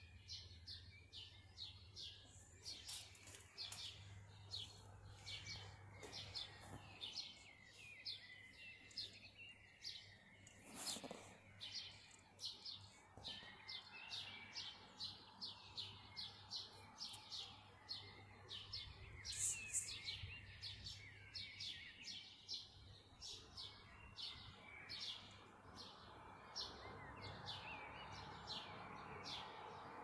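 Dawn chorus of small birds: many short, high chirps in quick succession, one call standing out louder and higher about two-thirds of the way through. A low steady hum lies underneath, and a rushing noise builds near the end.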